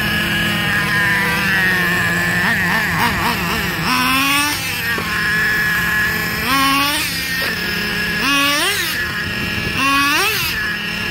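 Small nitro-fuelled 3.3 RC truck engine running in, held at a high-pitched idle and blipped on the throttle about five times, its pitch shooting up and dropping back each time.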